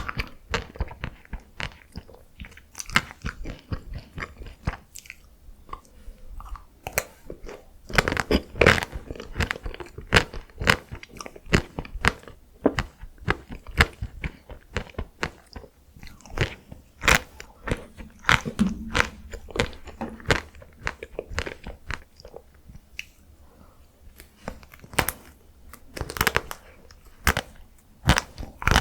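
Close-miked chewing and biting of chocolate and matcha ice cream, a steady stream of sharp crunchy crackles with a few louder bites.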